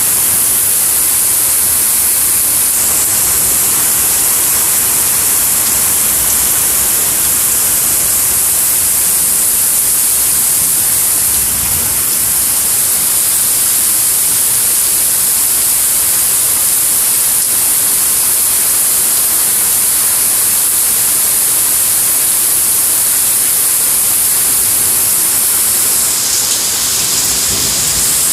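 Heavy rain pouring down in a thunderstorm: a loud, steady hiss.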